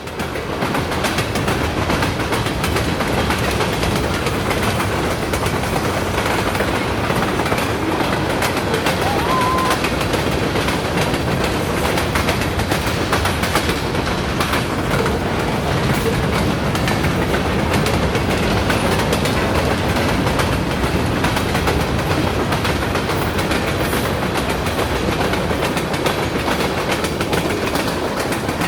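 Train cars rolling past, a steady rumble of wheels on the rails with clickety-clack.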